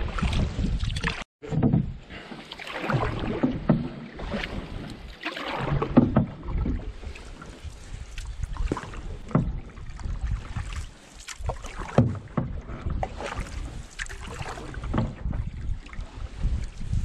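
Canoe paddle strokes in calm lake water: the blade dipping, pulling and splashing, a stroke every second or two, over a low hiss of moving water. The sound drops out briefly about a second in.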